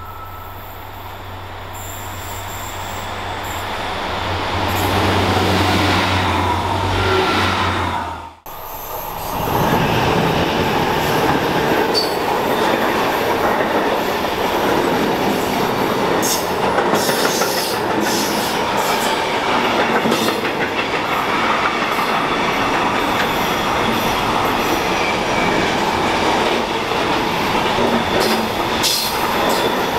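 A rail vehicle approaching with a steady low hum that grows louder over the first eight seconds. After a sudden break, a long intermodal container freight train rolls past at speed. Its wheels on the rails make a steady rush with scattered sharp clicks.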